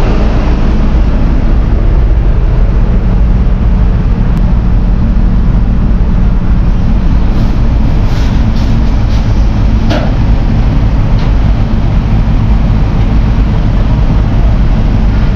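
Truck engine running steadily close by: a loud, even, deep drone, with a short click about ten seconds in.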